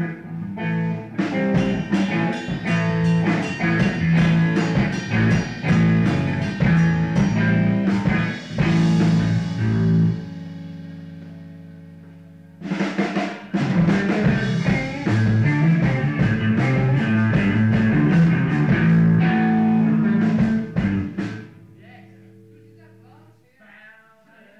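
Rock music with drums and guitar. About ten seconds in it stops on a held chord that fades, starts again a couple of seconds later, and ends on a held note that fades out near the end, leaving faint voices.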